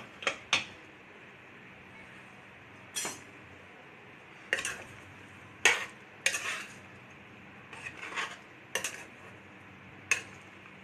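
Metal pots, pans and utensils clinking and knocking in the kitchen: about ten short, separate clinks spaced irregularly, a second or so apart.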